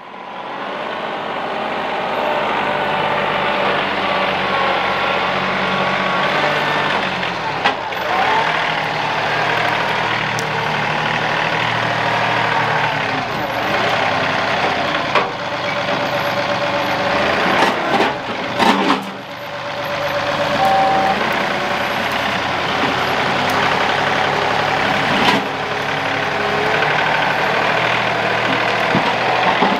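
John Deere compact tractor's diesel engine running steadily while working, with a few sharp knocks along the way.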